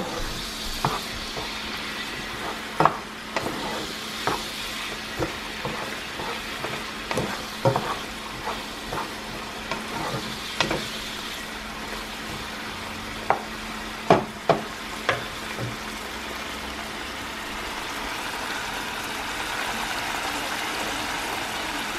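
Diced hot dog, salami and bell peppers sizzling and bubbling in a frying pan while a wooden spoon stirs them, knocking and scraping against the pan now and then. The knocks come mostly in the first two-thirds; after that only the steady sizzle goes on.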